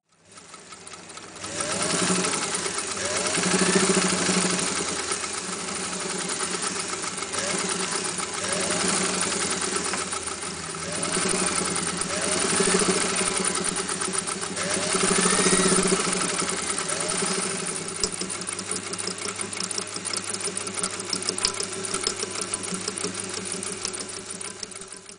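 Singer 201K sewing machine running and stitching at speed, its needle and mechanism making a fast, even clatter. The speed swells and eases several times, and the machine stops suddenly at the end.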